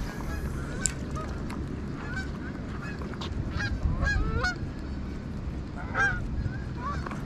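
Geese honking: many short calls bending up and down in pitch, scattered throughout, over a steady low rumble.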